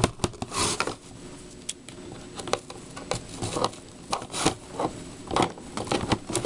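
Hands handling a plastic doll playset in its cardboard packaging tray: irregular rustling, scratching and small clicks of plastic and cardboard, with brief louder rustles about half a second in and again near the middle.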